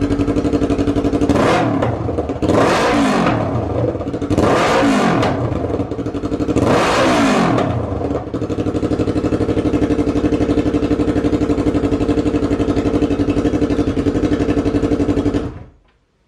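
2019 Yamaha R3's 321 cc parallel-twin engine running on a new Akrapovic exhaust with no slip-on muffler, pretty loud. It idles, is revved four times, each rev rising and falling back to idle, then idles steadily until it is switched off near the end.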